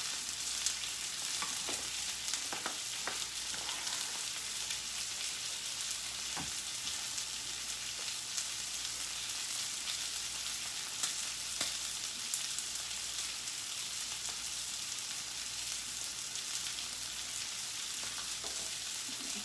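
Meat frying in a pan, a steady sizzle with a few light ticks and pops.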